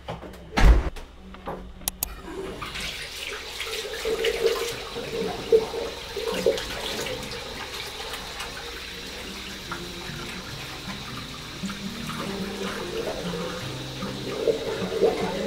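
A door shuts with a heavy thump about half a second in, followed by two sharp clicks near two seconds. Then a tap runs steadily into a washbasin while hands are lathered with a bar of soap and rinsed under the stream, with small splashes.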